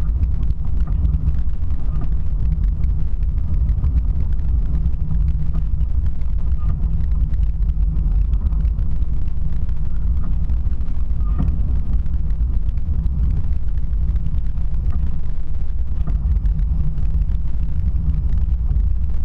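Steady low rumble of a vehicle running, at an even level throughout.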